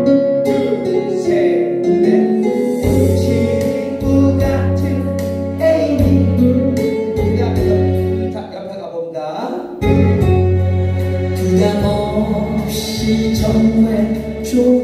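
A Korean trot song playing over a band backing track, with a strong bass line, a steady beat and a voice singing the melody.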